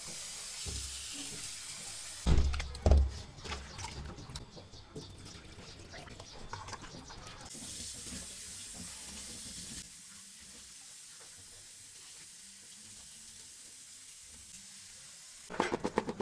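Kitchen tap water running into a steel bowl of raw chicken pieces, then over vegetables in a plastic colander as hands rinse them. A few knocks of the bowl being handled come about two seconds in, and the running water is fainter after about ten seconds.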